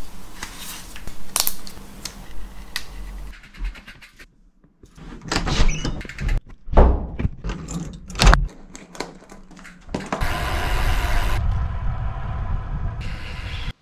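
Clicks and rustling as a cycling helmet goes on, then a door handle rattling and a door thudding with several loud knocks. Steady wind rush and tyre noise follow as a road bike rides off.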